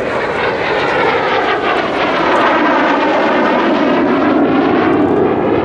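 Kawasaki T-4 jet trainer's twin turbofan engines as the jet passes by, a loud continuous rushing with a sweeping, phasing quality. It grows a little louder in the second half.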